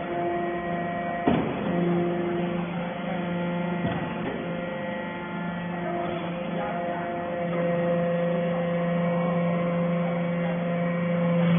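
Metal chip baler's hydraulic pump and motor running with a steady hum, with a couple of short knocks about a second and four seconds in.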